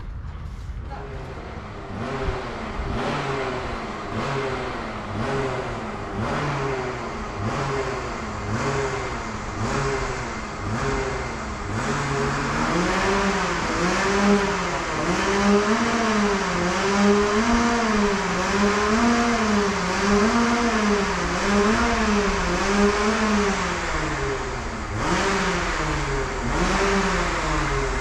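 Go-kart engines running while the karts wait in the pit lane, their pitch rising and falling in an even cycle about once a second. The engine sound grows louder about halfway through.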